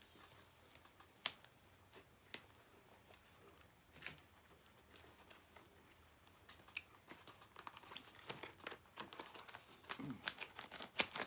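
Paper and tape packaging being handled and unwrapped: a few scattered rustles and clicks, then rapid crinkling and tearing from about seven seconds in.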